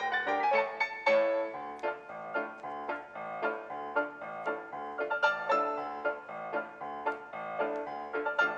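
Background piano music with a quick, even run of notes.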